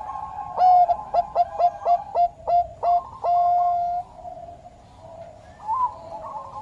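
Zebra dove (Bangkok-line perkutut) cooing: a quick run of about nine short, clipped notes, then one longer held note ending about four seconds in, over a fainter steady background tone. One more short note comes near the end.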